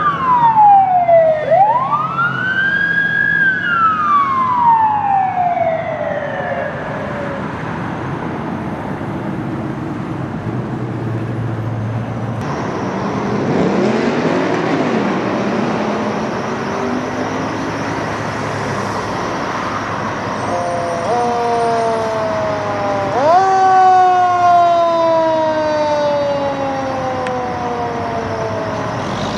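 Fire apparatus sirens: a wail that falls, rises and slowly winds down over the first several seconds, then the truck's engine running. Near the end a siren winds up sharply twice, each time coasting slowly down.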